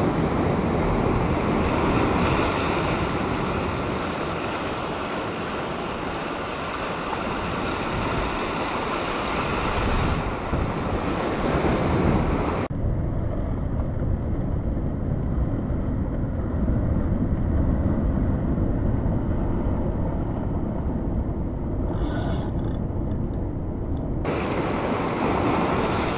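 Sea surf washing and breaking over a sandstone rock shelf, with wind buffeting the microphone: a steady rushing noise that sounds duller through the middle stretch.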